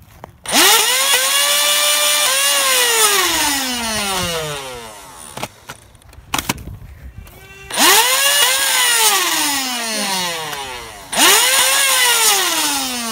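Motorized Nerf flywheel blaster revving three times: each time the motor whine climbs quickly to a steady high pitch, holds for a second or two, then winds slowly down as the flywheels coast to a stop. It is loud and close, enough to shake the camera.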